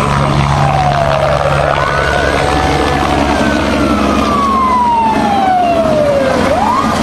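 A siren wailing: its pitch rises, falls slowly over several seconds, and rises again near the end. Beneath it runs the steady rumble of a Eurocopter AS350 helicopter's rotor and turbine as it climbs away overhead.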